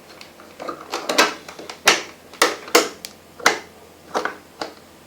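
A butter knife tapping and scraping against the metal of a front-loading washing machine's door latch as it is worked into position: about a dozen sharp, irregular metallic clicks.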